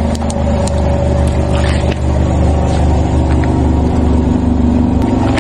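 Car engine running steadily at low revs as the tyre rolls slowly over a plastic margarine tub, with a few small cracks and crackles as the tub gives way.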